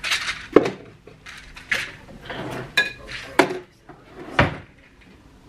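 Household objects being handled and set down: a string of sharp knocks and clinks, about eight over four seconds, a few briefly ringing. The loudest knock comes about half a second in.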